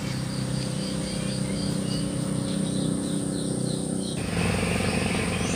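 Garden ambience: a steady low engine-like hum under insects chirping in short, evenly repeated high notes.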